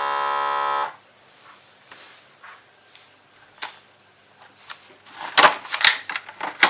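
Vacuum sealer's pump running with a steady buzzing tone that cuts off suddenly about a second in when it is switched off, since it does not stop by itself. A few faint clicks follow, then loud crackling of the plastic sealer bag being handled in the last second and a half.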